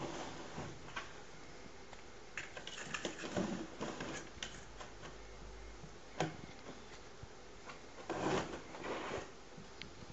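Cardboard shoebox and snack tube worn by a cat rustling, scraping and knocking lightly as the cat walks and turns, with one sharp knock about six seconds in and two longer bursts of rustling near the end.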